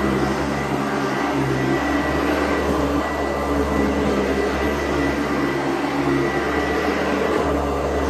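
Sanitaire SC886 upright vacuum cleaner running steadily as it is pushed over a rug: an even motor drone with a thin, steady whine above it.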